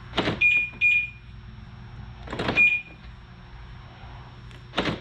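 BMW F10 door locks clunking three times, about two and a half seconds apart, as the comfort access door handles are worked. Each clunk is followed by one or two short high beeps.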